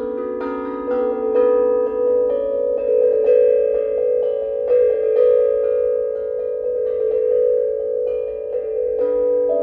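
Two steel tongue drums, one tuned to a Grace B-minor scale and one to an Astral B-minor scale, played together with mallets: a steady stream of struck notes that ring on and overlap in harmony.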